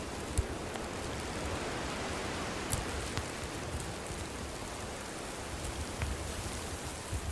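Campfire burning with a steady hiss and a few sharp crackles and pops from the wood.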